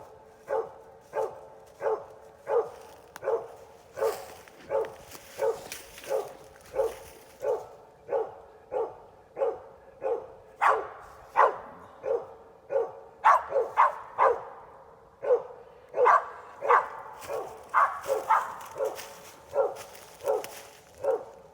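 Squirrel-hunting dog barking steadily over and over, about one and a half barks a second, the repeated bark of a dog barking treed at a squirrel. A few barks come in quick pairs midway.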